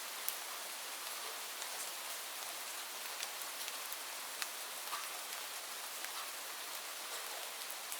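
Steady rain falling, an even hiss with scattered sharp drop ticks of individual raindrops hitting a surface.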